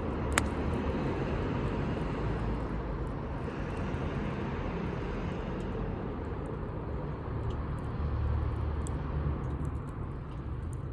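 Campfire burning with a sharp pop about half a second in and scattered small crackles, over a steady low rumble that swells a little near the end.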